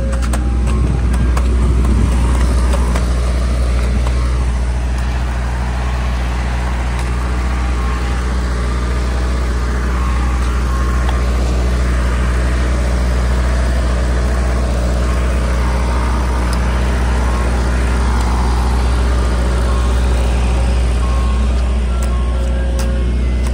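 Soft-serve ice cream truck's engine running close by at low speed, a steady low drone.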